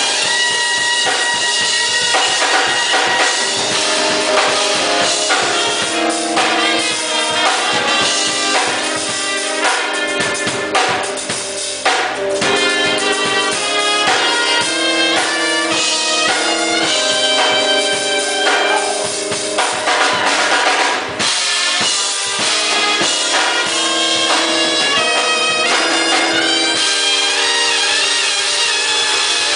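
Music with a drum kit playing a beat under pitched instruments holding and changing notes.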